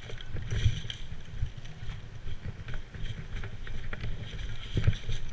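Low wind rumble on the microphone with scattered light clicks and rustles, and two heavier thumps, about a second in and near the end.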